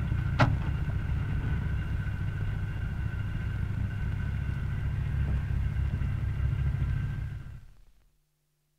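Short Stirling bomber's Bristol Hercules radial engines heard from inside the aircraft at shutdown, after the switches-off order: a steady low rumble. A single click comes just under half a second in, and the sound fades out near the end.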